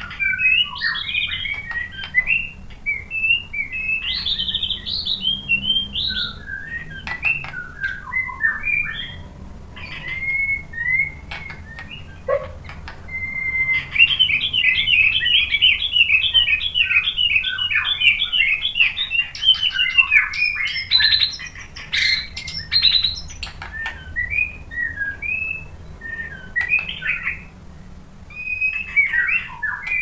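White-rumped shama (murai batu) singing a long, varied song of whistled phrases, with a fast run of rapidly repeated notes lasting several seconds in the middle.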